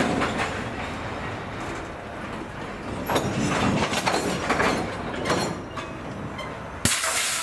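Freight train gondola cars rolling slowly past, their wheels and couplings clanking irregularly over the rails. Near the end there is a sharp knock, then a burst of hiss.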